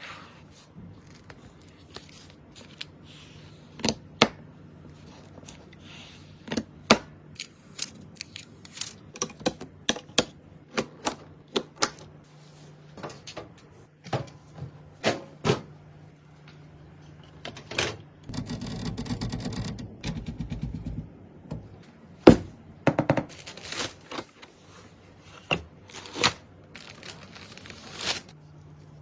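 Computer parts being handled and fitted together by hand: a string of sharp, irregular clicks and clacks of plastic and metal snapping and knocking into place, with a rapid rattling for about three seconds past the middle.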